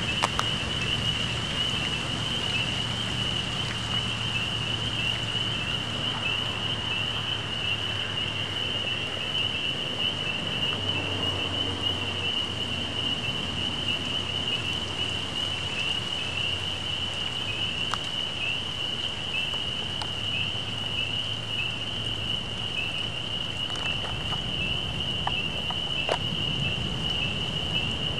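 Steady hiss of rain with a few scattered drips, under a continuous high-pitched animal chorus: many small calls merging into one unbroken high tone.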